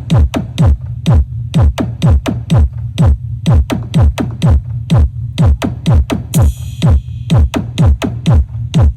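Electronic dance music with a fast, heavy kick drum whose every stroke drops in pitch, over a steady deep bass, with a short hissing sweep about six and a half seconds in.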